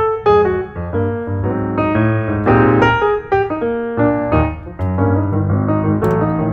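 Background piano music: a steady run of notes over a low bass line.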